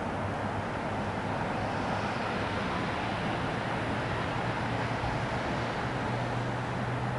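Boeing 777 jet engines running: a steady rumble and rush of noise with a low hum underneath that rises slightly in pitch near the end.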